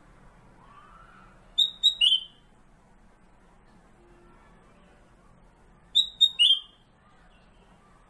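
Caged kutilang emas (black-crested bulbul, Pycnonotus melanicterus) singing two short phrases of three quick, clear, high notes each, about four seconds apart.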